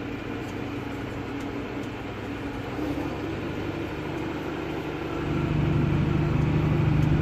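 Tractor engine running, heard from inside the cab as a steady hum that grows louder about five seconds in, as the tractor works along a chopped corn field.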